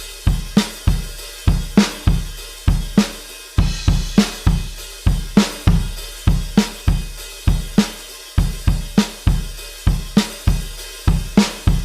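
Drum kit playing a rock beat: kick drum, snare and hi-hat or cymbals in a steady, even rhythm, with no other instruments.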